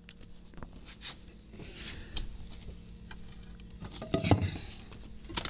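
Soft footsteps and light taps on a wooden floor, then a brief clatter of knocks about four seconds in as a sliding window's frame is handled.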